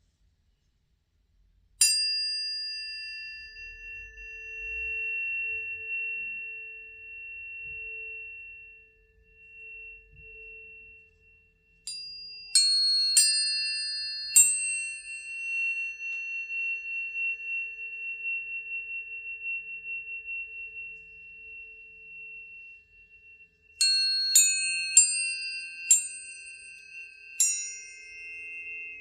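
Tuning forks struck one after another, each strike giving a brief bright clang that settles into a pure, steady high tone that keeps ringing. There is one strike about two seconds in, a run of four around the middle, and five more near the end.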